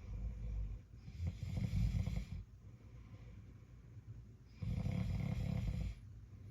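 A sleeper snoring: two long snores about three and a half seconds apart, each lasting around a second and a half, with the end of an earlier snore at the very start.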